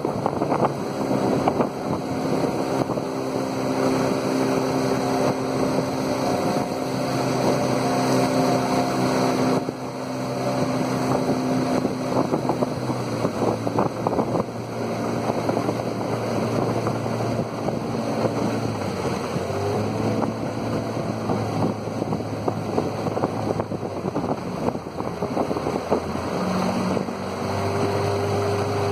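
Outboard motor running steadily as it pushes a small aluminium boat along a river, its pitch shifting a few times as the throttle changes. Wind on the microphone and rushing water lie underneath.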